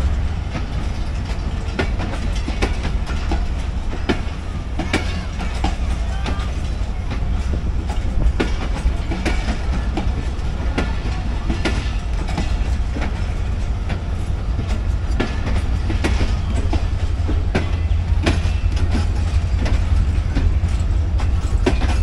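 Passenger coaches of a departing express train rolling past at close range, their wheels clicking and knocking irregularly over the rail joints above a steady low rumble.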